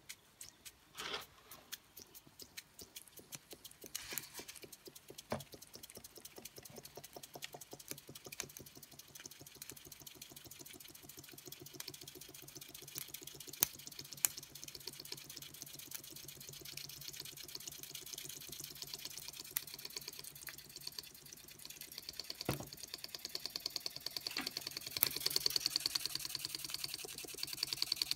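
Small antique Radiguet vertical model steam engine running, ticking with each stroke and gathering speed, the beats coming faster and faster. A low steady hum enters about six seconds in, and a higher hiss joins near the end.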